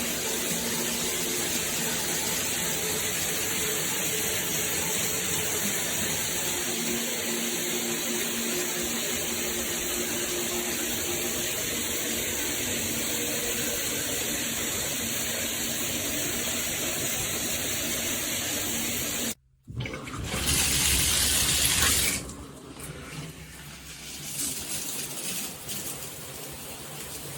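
Water spraying steadily from a high-pressure SparkPod filtered shower head, an even hiss. About 19 seconds in it breaks off abruptly; a louder rush of water follows for about two seconds, then a quieter, uneven water sound.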